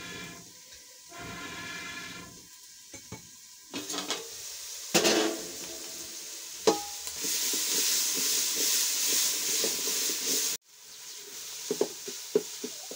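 A metal lid clattering and ringing as it comes off an aluminium cooking pot over a wood fire, then the onion and tomato stew sizzling loudly in the hot pot for a few seconds. After an abrupt cut, a wooden spoon clicks and scrapes as it stirs the pot. Two long, steady pitched tones sound near the start.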